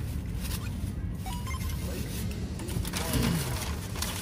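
Paper fast-food wrapper rustling and crinkling as it is handled, over a steady low rumble.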